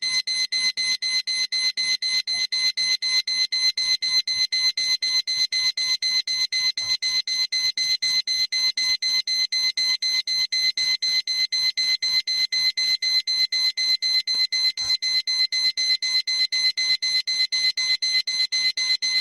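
Electronic alarm clock beeping: a loud, high-pitched tone pulsing on and off in rapid, evenly spaced beeps.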